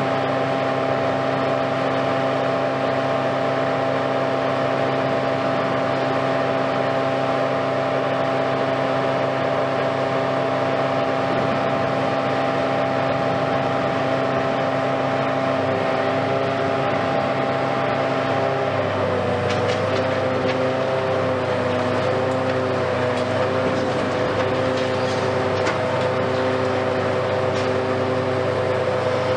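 Hitachi Kiesel KMC520 high-reach demolition excavator running steadily, its engine and hydraulics giving a constant drone. About two-thirds of the way through, the engine note shifts slightly lower and wavers as the boom works, and faint clicks come in after.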